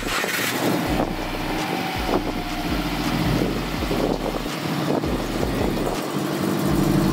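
Subaru Impreza flat-four engine running steadily just after being started.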